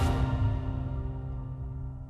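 Closing theme music: held synth tones over a low bass, fading out.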